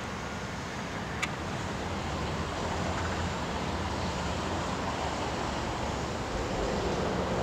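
Steady outdoor noise of wind and distant road traffic, with a single sharp click about a second in.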